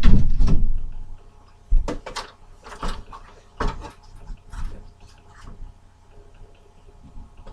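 A loud bump, then a string of lighter knocks and clatters about every half second to a second, fading out after about five seconds.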